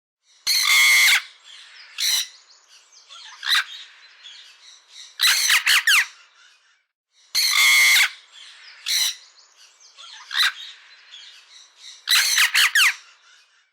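Bird squawking and calling, in harsh calls with quieter chirps between them. The same sequence plays twice: a long call, then shorter calls, then a cluster of rapid calls.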